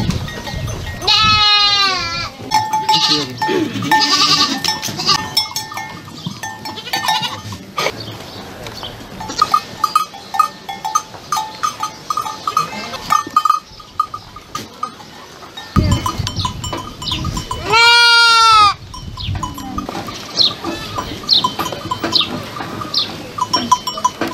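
A pen full of goats bleating: two long, loud bleats stand out, one about a second in and another about three-quarters of the way through, with quieter calls from the herd between them.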